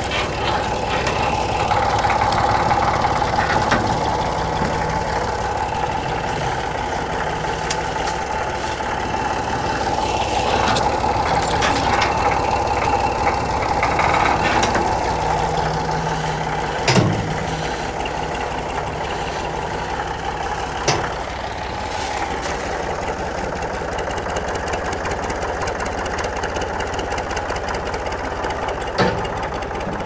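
Tractor engine running steadily, with a few short sharp knocks over it.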